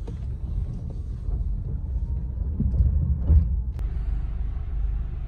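Low, steady rumble of a car's engine and tyres heard from inside the cabin while driving, swelling a little with a brief louder knock about three seconds in.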